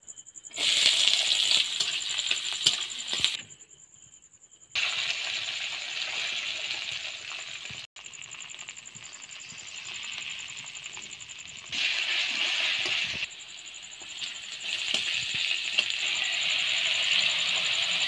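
Hot oil sizzling in a steel kadai as egg fries, with a metal spatula scraping and clinking against the pan. The sizzle comes in stretches that start and stop abruptly.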